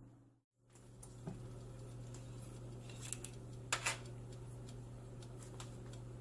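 Light clicks and a quick pair of knocks from things being handled at a stovetop, over a steady low hum. The sound drops out briefly just after the start.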